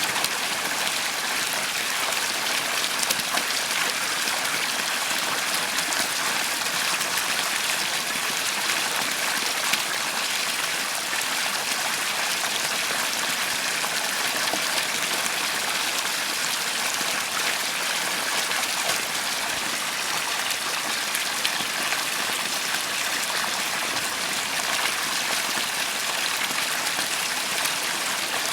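Water fountain running steadily: falling water splashing into its basin in a continuous hiss.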